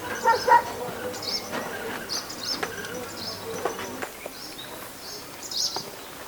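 Small birds chirping in short, repeated high notes, with a few sharp clicks and knocks.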